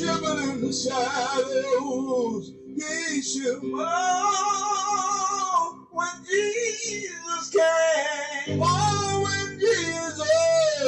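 A recorded song playing back: layered singing voices over a guitar accompaniment with sustained low notes, the low end filling out about eight and a half seconds in.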